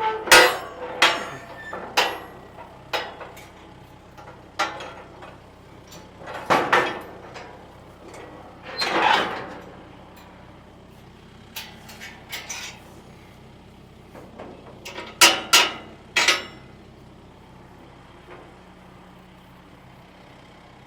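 Heavy metal clanks and bangs from steel trailer ramps being worked loose and lowered, a few sharp strikes about a second apart, then scattered knocks with a longer scrape in the middle and a quick run of bangs near the end. A vehicle engine idles steadily underneath.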